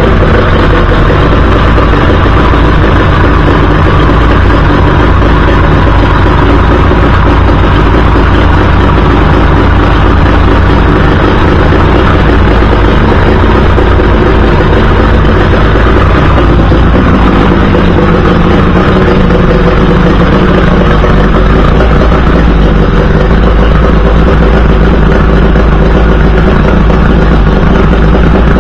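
A 50 hp Mercury two-stroke outboard with Thunderbolt ignition, running out of the water on a garden hose. It runs loud and steady, and its note shifts a little past halfway through.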